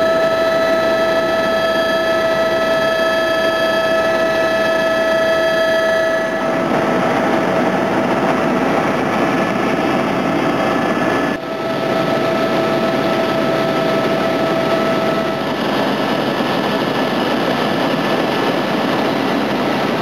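Helicopter cabin noise in flight: a steady high-pitched engine whine over a broad rushing noise of rotor and air. The whine drops back under the rush about six seconds in, and there is a sudden break a little past the middle.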